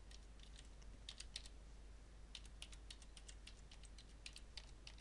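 Faint clicks of computer keyboard keys being typed one at a time, about a dozen keystrokes in short uneven runs with brief pauses between them.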